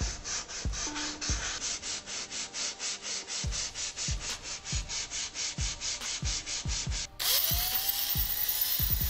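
A strip of abrasive cloth is pulled back and forth across the edges of a knife's bakelite handle scales clamped in a vise, making about five even rasping strokes a second. About seven seconds in, this switches to a drill spinning up, with a rising whine and a steady hiss, as a small grinding stone chamfers the holes in the steel tang.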